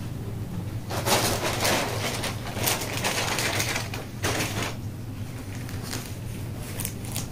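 Irregular bursts of rustling and knocking from objects being handled, over a steady low hum.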